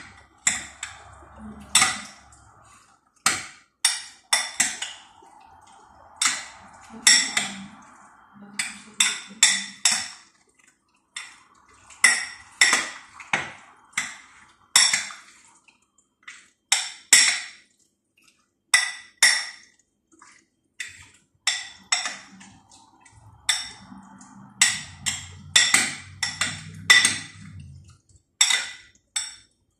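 A spoon clinking against a glass bowl while stirring shrimp in a marinade: irregular sharp, ringing clinks, about one or two a second, with short pauses between runs.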